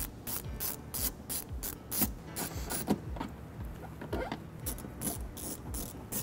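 Hand-driven Phillips screwdriver clicking as it backs screws out of a plastic wheel-well liner: a run of quick clicks, about four or five a second, a short pause past the middle, then more clicks.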